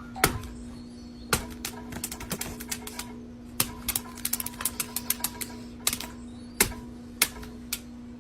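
A run of sharp, irregular clicks and taps, bunched into quick clusters through the middle, over a steady low hum.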